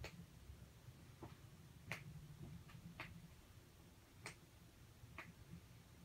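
Near silence: faint room tone with a handful of short, sharp clicks, roughly one a second at uneven intervals.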